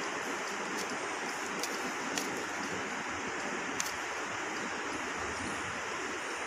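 A steady, even rushing noise with a few faint ticks.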